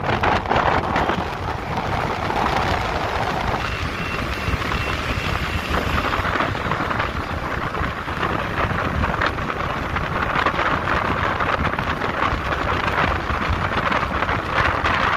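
Wind rushing and buffeting at an open bus window at highway speed, over the steady noise of the moving bus's engine and tyres on the road.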